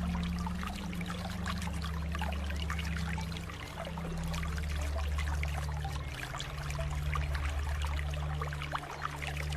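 Flowing water trickling and splashing steadily. A low steady hum sits underneath and shifts to a new pitch every second or two.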